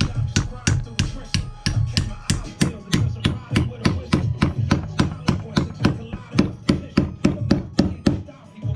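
Background music with a steady beat: crisp percussive ticks about four to five a second over a pulsing bass.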